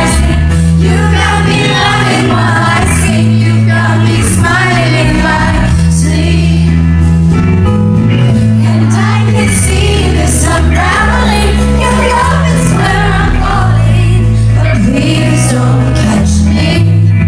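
Live pop band with a strong, steady bass line and a female lead voice singing over it.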